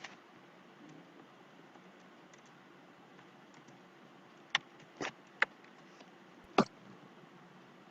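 A few sharp, separate clicks from computer input while editing a transcript: a faint one at the start, then four in the second half, over a faint steady background hiss.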